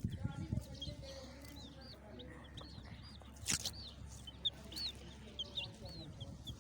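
Baby chicks peeping: many short, high chirps, each rising and falling in pitch, scattered throughout. A single sharp tap about three and a half seconds in.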